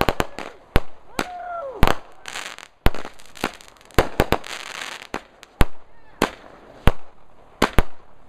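Consumer fireworks going off: a rapid, irregular series of sharp bangs, with a crackling hiss between about two and five seconds in.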